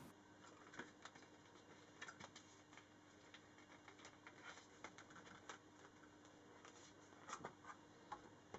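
Faint clicks, taps and light scrapes of a cardboard box and its packaging being handled as an iPad mini Smart Cover is pulled out, with a few louder clicks near the end.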